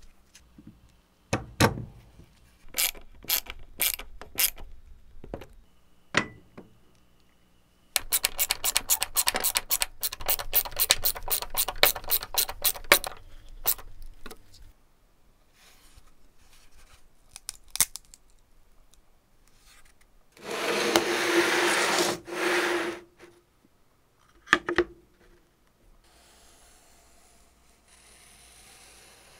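Workshop hand-tool sounds on metal parts: scattered sharp clicks, then a run of quick regular clicks, about six a second, for some five seconds. Later comes a hissing burst of about two seconds, followed by a few more clicks.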